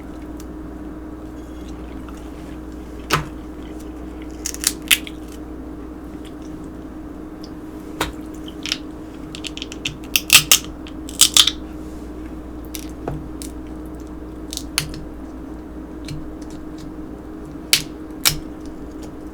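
Eating a seafood boil: irregular sharp clicks and cracks of shells and utensils with chewing, bunched most thickly around the middle, over a steady low hum.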